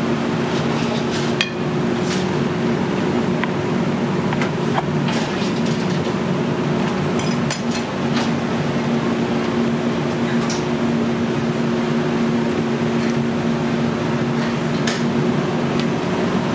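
Scattered sharp clicks and cracks as a broiled lobster's shell is broken and picked apart by hand and with a fork against a plate, over a steady kitchen hum with a low drone.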